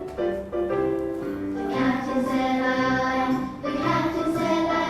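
Children's phonics song with sung vocals over a musical backing.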